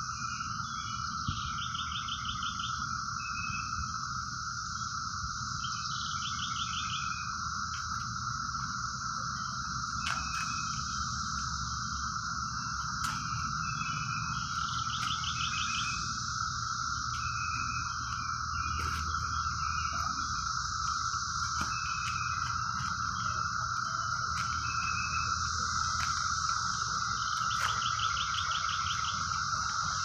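Cicada chorus droning steadily and unbroken, with a bird's short chirps and a few rapid trilled phrases coming every few seconds over it.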